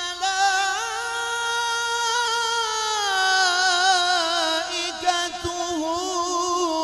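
A male qari reciting the Quran in melodic tajweed style, drawing out one long ornamented phrase with a wavering pitch that steps up about a second in and slides down around the middle.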